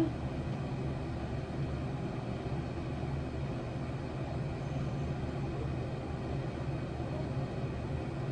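A steady, low rumbling background noise with no clear events in it.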